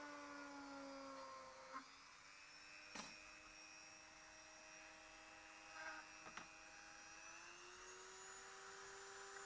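Handheld rotary tool running at high speed with a faint, steady whine while cutting a mounting hole in a plastic plate. Its pitch dips slightly about two seconds in and rises again near the end, with a few faint clicks.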